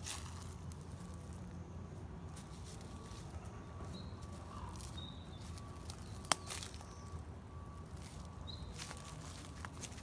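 Quiet forest ambience with a steady low rumble, faint rustling in the undergrowth and a few brief high chirps. One sharp click about six seconds in.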